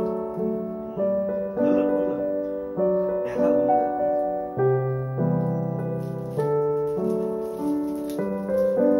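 Background piano music: gentle chords and notes struck one after another, each dying away before the next.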